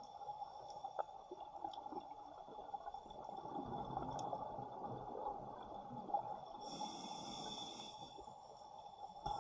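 Scuba regulator breathing heard underwater: a bubbling exhale from about three to five seconds in, then a short hissing inhale around seven seconds in, over a steady underwater hiss with a few scattered sharp clicks.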